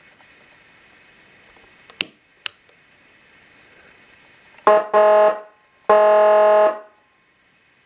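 Two switch clicks, then a Whelen 295HFSA5 200-watt siren amplifier sounding its steady, buzzy horn tone in three blasts, the first very short and the last about a second long.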